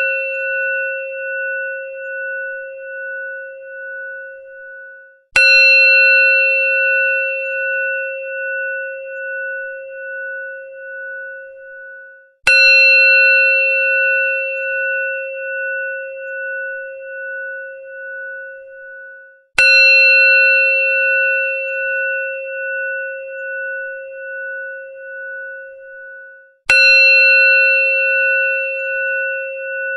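Temple bell (ghanti) struck four times, about every seven seconds. Each strike rings on as a wavering, pulsing hum that fades and cuts off just before the next strike.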